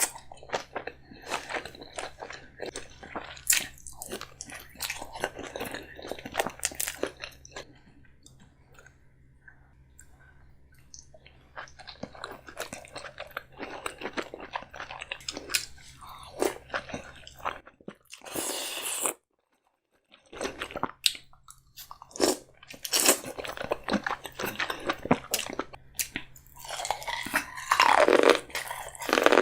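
Close-miked eating of a king crab seafood boil: crab shells cracking and crunching between bites, with wet chewing in sauce. A cut leaves about a second of silence partway through.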